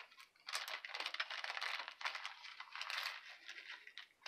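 Clear plastic zip bag crinkling and crackling as hands tug and work at it to get it open, with the small metal gears inside clinking lightly. The crackling starts about half a second in and eases off near the end.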